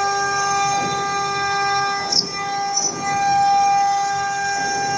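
CNC router spindle whining steadily at a fixed pitch as its bit cuts an aluminum-plastic composite panel, with two short sharp bursts of cutting noise between two and three seconds in.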